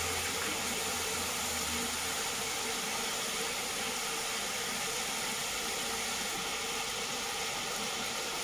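Water heating in an open stainless pressure cooker on the hob, giving a steady hiss as it comes toward a simmer around the chicken and potatoes.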